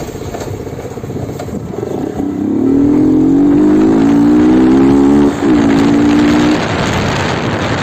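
Yamaha R15 V2's single-cylinder four-stroke engine accelerating under way: the revs climb steadily for about three seconds, drop sharply at an upshift, climb again briefly, then fall away as the throttle eases off.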